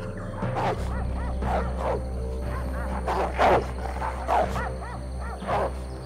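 A dog barking and yelping repeatedly, short arching calls every half second or so, over background music with a low drone.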